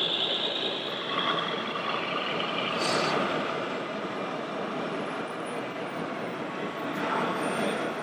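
Radio-controlled scale MAN tipper truck driving on the course: a steady running noise, with a short hiss about three seconds in.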